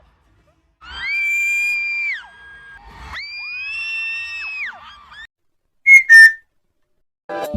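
Long, piercing high-pitched screams from the audience: three held screams of a second or more, each falling off in pitch at the end, then two short, very loud shrieks about six seconds in.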